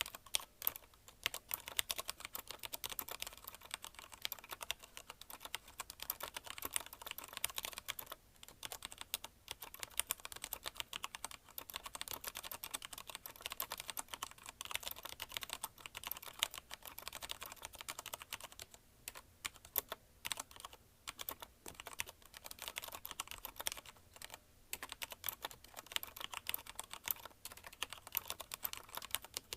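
Fast touch typing on a mechanical keyboard with Cherry MX Red linear switches: a dense, uneven patter of key clicks with a few brief pauses.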